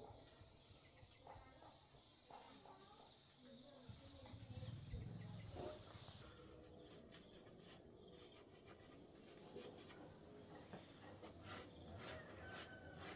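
Near silence with faint, steady high-pitched insect chirring, and a few soft clicks.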